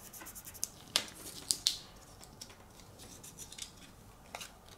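Hands handling paper-backed vinyl pieces and transfer tape sheets on a cutting mat: soft paper rustling with a few light clicks and taps, most in the first two seconds and one more near the end.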